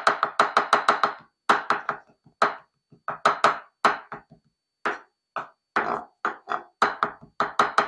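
Knife chopping on a cutting board: a fast run of strokes at the start, then short bursts of chopping with brief pauses between them.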